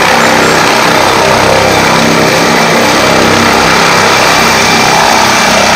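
Helicopter's turbine engines and rotor running at take-off power as it lifts off the ground. A loud, steady sound with a high whine.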